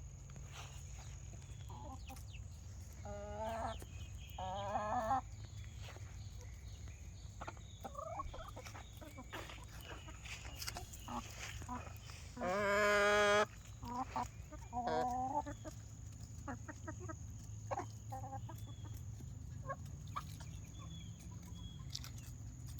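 Backyard chickens clucking and calling on and off, with one loud, drawn-out call about halfway through, over a steady low hum.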